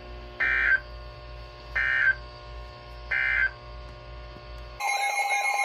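Emergency Alert System end-of-message data bursts: three short screechy digital tone bursts about 1.4 seconds apart, over a low hum. Near the end the two-tone EAS attention signal cuts in abruptly and holds steady, a loud alarm tone announcing the next warning.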